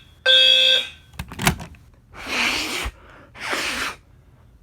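Fire alarm horns sound one more half-second blast, the last of a code-3 temporal pattern, and then fall silent. A click follows, then two short rushing, hissing noises.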